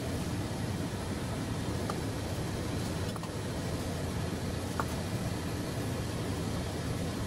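Steady low running noise of a CF-200 circle feeder discharging broken corn, with a few faint clicks.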